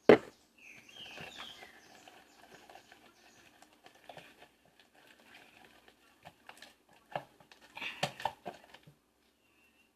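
Hands squishing and kneading a sticky homemade slime with bits of sponge mixed in, giving irregular wet crackles, clicks and small squeaks. A sharp knock opens it, and a denser run of squelches comes near the end.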